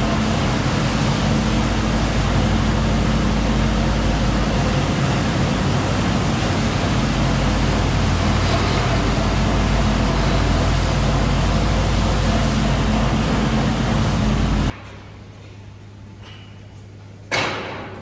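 Kuhn straw-bedding blower and its tractor running steadily, the blower's fan throwing chopped straw: a dense hiss over a steady low engine hum. It cuts off suddenly about 15 seconds in, and one sharp clank rings out near the end.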